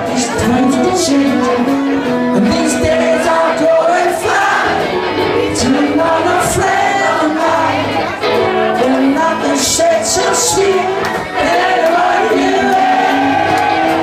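Loud live indie rock band playing with electric guitars, drums and a lead vocal, the crowd noise and singing of the audience mixed in close to the microphone.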